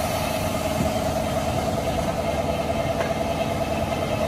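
Car engine idling steadily with the bonnet open.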